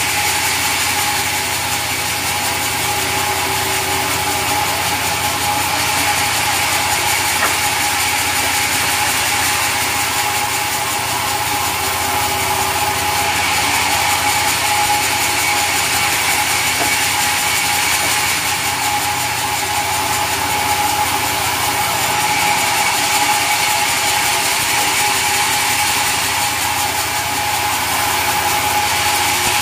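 Sawmill saw running steadily, with a constant whine over dense mechanical noise, while sawing mahogany timber.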